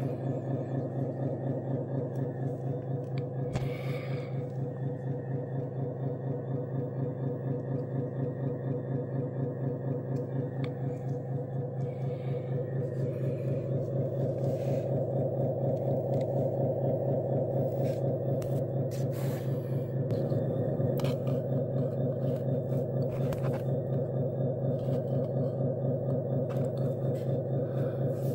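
Small electric hydraulic pump of a 1/14 scale RC dump truck running with a steady, pulsing hum, growing louder about halfway through, with a few light clicks.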